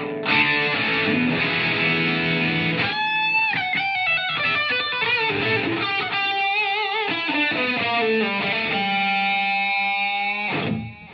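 Semi-hollow-body electric guitar being played: held chords for about three seconds, then a melodic lead line with bends and vibrato, ending on a long held note that stops just before the end.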